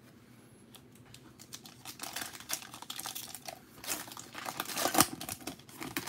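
Foil wrapper of a 2020 Panini Prizm football hobby pack crinkling as it is torn open by hand. The crackling starts about two seconds in and goes in irregular bursts, with the sharpest rip about five seconds in.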